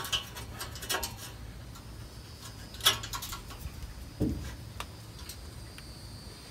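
A few separate light metallic clicks and taps as a U-bolt exhaust clamp is handled and fitted over a 2.25-inch exhaust pipe joint, with a duller knock about four seconds in.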